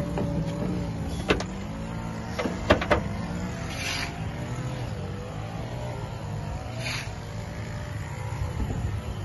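Land Rover Series III engine idling steadily after a cold start. A few sharp clicks about a second in and again near three seconds, with short hissing swells now and then.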